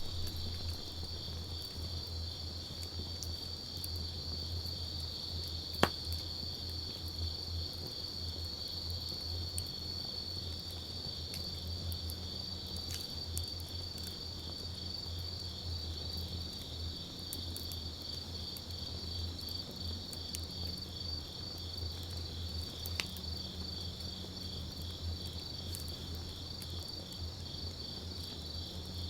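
Crickets trilling in a steady, high, pulsing chorus over the sparse crackle of a wood campfire, with sharp pops, the loudest about six seconds in and another near 23 seconds. A low steady hum runs underneath.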